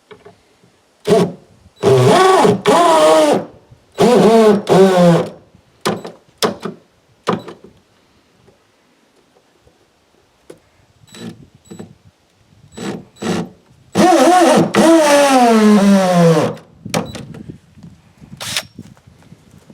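Power drill driving fasteners in several bursts of one to two and a half seconds, the motor's pitch wavering with the load, with clicks and knocks of handling between bursts. In the longest burst, near the end, the pitch falls steadily as the drill slows under load.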